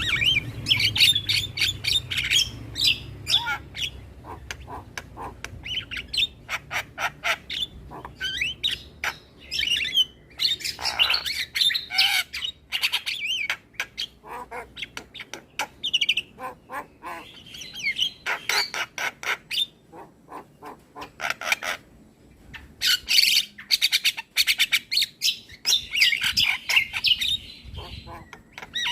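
Javan myna (jalak kebo) song: fast runs of sharp clicking notes and harsh squawks, broken by short pauses.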